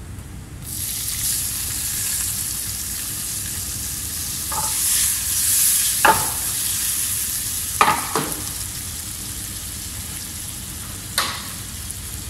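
Sliced carrots going into hot oil and butter in a non-stick pan: the sizzle starts abruptly about a second in and then runs steadily. A few sharp clacks of a utensil stirring them against the pan.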